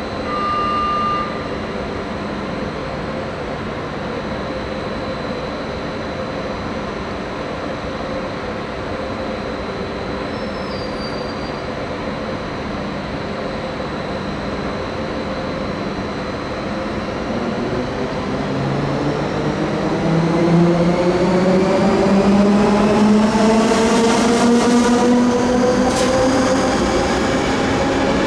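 ÖBB class 4020 electric multiple unit pulling out of the platform. Over a steady electric hum, its traction motors begin a whine about two-thirds of the way in that rises in pitch and grows louder as it accelerates, with wheel-on-rail noise as the cars pass. A short beep sounds about a second in.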